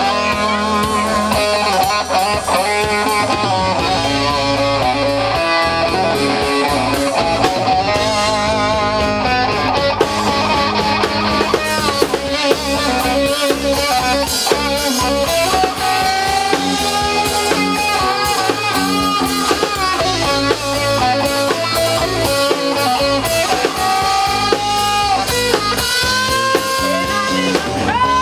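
Live rock band playing: electric guitars, bass guitar and a drum kit, with long held, wavering notes in the second half.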